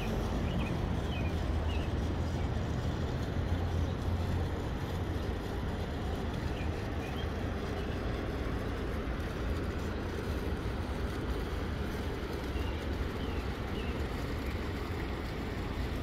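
Steady outdoor background rumble, low and even, with a few faint high chirps early on and about two thirds of the way through.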